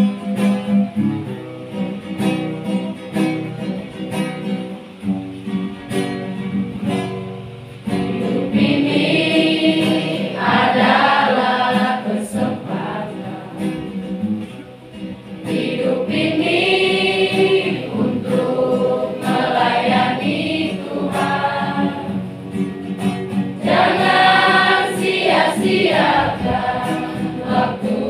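Children's church choir singing a hymn in unison, accompanied by acoustic guitar. The voices are quieter for the first several seconds and come in fuller and louder about eight seconds in.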